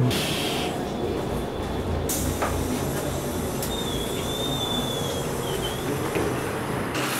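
City bus running with a steady low rumble, heard from inside at its door. A brighter hiss comes in about two seconds in, and a thin whistling tone sounds briefly around four seconds in.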